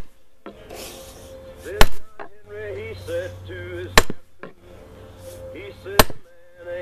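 10-pound sledgehammer striking a fallen log: three heavy blows about two seconds apart. Old recorded music with singing plays quietly underneath.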